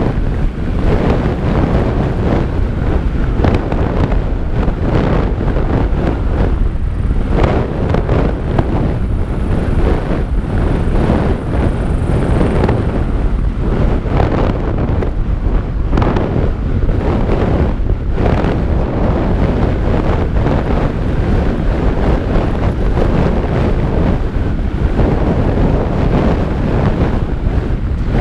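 Wind rushing loudly over a helmet-mounted action camera's microphone during a fast mountain-bike descent, with the Santa Cruz Bronson's tyres on dirt and frequent knocks and rattles as the bike hits bumps in the trail.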